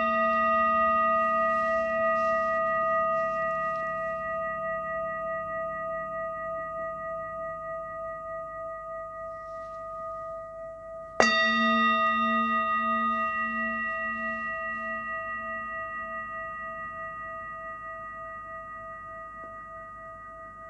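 A struck bell ringing and slowly fading, with a wavering hum underneath; it is struck again about eleven seconds in and rings out once more.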